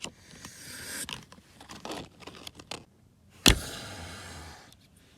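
A car seatbelt being pulled across, its webbing sliding with a rustling scrape, then the latch plate clicking once into the buckle about three and a half seconds in, followed by a short rustle of the belt.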